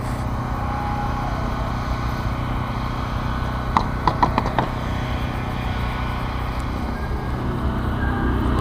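Steady low motor hum, with a few light clicks about four seconds in.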